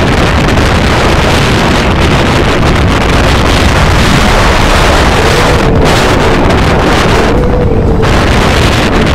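Wind buffeting the phone's microphone: a loud, steady rumbling rush with no break.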